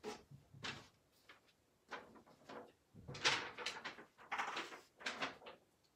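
Dry-erase marker strokes rubbing and squeaking on a whiteboard: a series of short strokes with pauses between them, the longest a little after three seconds in.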